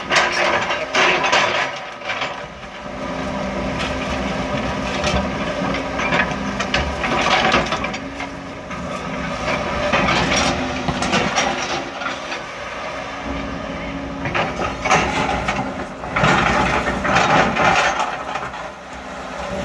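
John Deere 200 excavator's diesel engine running steadily under load while its bucket works a concrete footer, with repeated bursts of concrete crunching and scraping every few seconds as it tries to break the footer free of its rebar.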